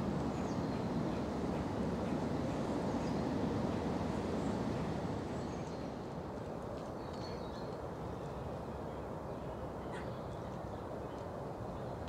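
Steady low outdoor background noise with a few faint, short bird calls scattered through it. The noise drops slightly about five seconds in.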